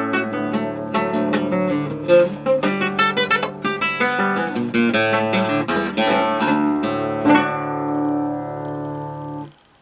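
Acoustic guitar playing a choro: quick plucked melody notes over bass notes. The piece closes on a final chord held for about two seconds, which cuts off abruptly near the end.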